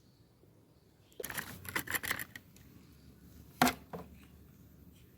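Small handling sounds from the brake work: a second or so of rustling, clicking noises, then one sharp click about three and a half seconds in, followed by a faint knock.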